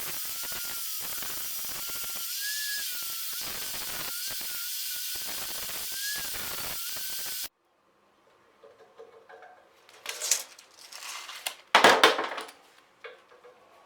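Handheld electric power tool running steadily, its whine dipping and rising as it comes under load, then cutting off abruptly about seven and a half seconds in. A few clanks and knocks of metal parts being handled follow, the loudest near the end.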